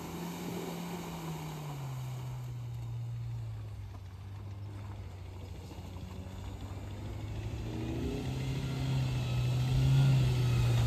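Off-road vehicle engine running: its pitch drops over the first couple of seconds and holds steady, then rises and gets louder over the last few seconds as it picks up revs.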